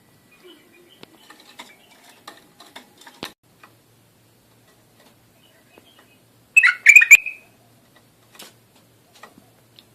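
Bulbul singing one short, loud burst of quick rising and falling whistled notes about two-thirds through, after a few seconds of faint clicks and soft notes.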